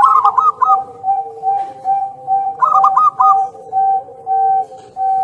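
Zebra dove (perkutut) cooing: a run of evenly spaced low coos at about two a second, with two quick clusters of higher, clipped notes, one at the start and one about two and a half seconds in.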